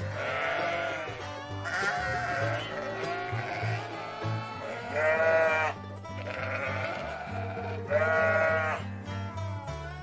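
Sheep bleating several times over background music, with the two loudest bleats about five and eight seconds in.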